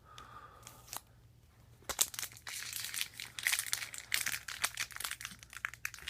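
Plastic trading-card pack wrapper crinkling and crackling, starting about two seconds in, as it is worked at and pulled to tear it open; the pack is tightly sealed and resists opening.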